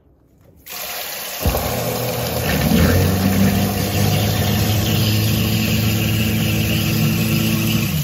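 Kitchen faucet water starts running into the sink, then about a second and a half in a garbage disposal motor switches on and runs with a loud, steady hum over the water, stopping near the end.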